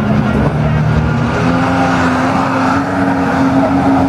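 Car engine running steadily at the drag strip, its low tone stepping up slightly about a second and a half in.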